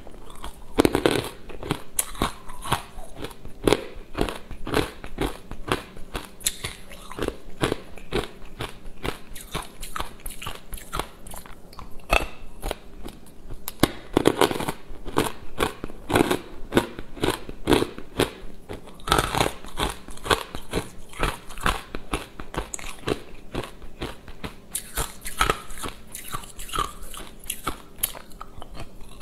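Frozen matcha ice cubes being crunched and chewed between the teeth: a dense run of sharp crunches and cracks with no pause.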